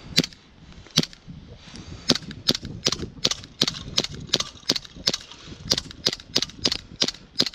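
WE Glock 19 gas blowback airsoft pistol firing about eighteen shots in quick succession, the first few spaced apart and then a steady string of about three a second.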